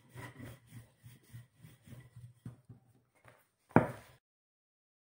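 Wooden rolling pin rolling chapati dough out on a countertop: soft, repeated rubbing strokes about three a second. A sharp knock comes a little under four seconds in, then the sound cuts off into silence.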